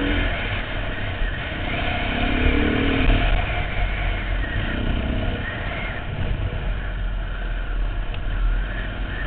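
Dirt bike engine running under way, its pitch rising and falling with the throttle, with heavy rumble from wind over the helmet-mounted microphone.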